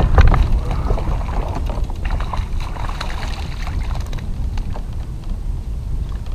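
Wind buffeting the microphone as a steady low rumble, strongest around the start, with a few light clicks and knocks scattered through it.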